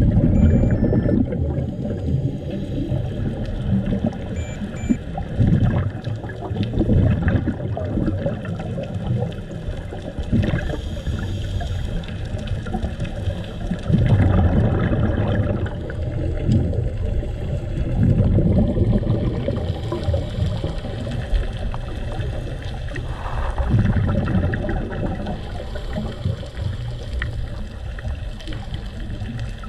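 Scuba diver breathing through a regulator underwater: a low bubbling rumble of exhaled air comes back every four to five seconds over a constant watery background.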